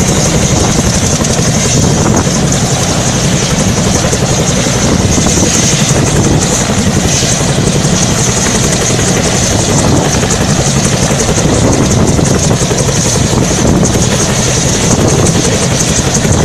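Helicopter running close by: a loud, steady rapid rotor chop with a steady high whine over it.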